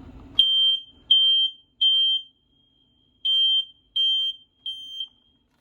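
Smoke alarm sounding its test in the fast temporal-three (code 3) pattern: two sets of three short, high-pitched beeps with a pause between them. The last beep is quieter, and the alarm stops near the end.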